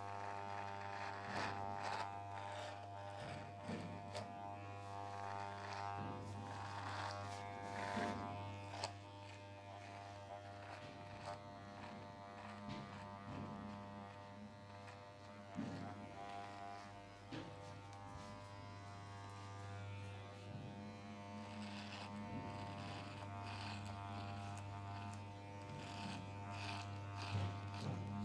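Electric hair trimmer buzzing steadily, with scattered sharp clicks over it.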